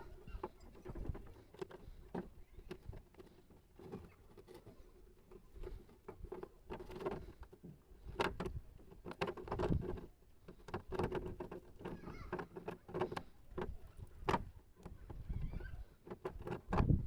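Irregular light clicks and taps from handling and working small objects, over a faint steady hum.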